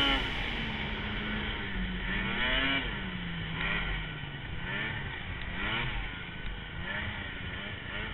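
Snowmobile engine being ridden over snow, revving up and easing off again and again, its pitch rising and falling every second or so.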